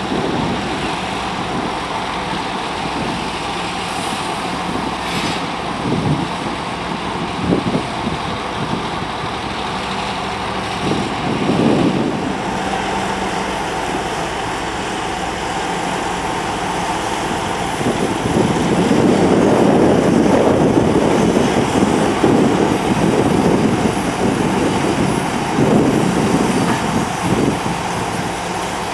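2M62U diesel locomotive's two-stroke 14D40 engines running at low speed as the locomotives move slowly. The drone swells louder for a few seconds past the middle, with a few short knocks earlier on.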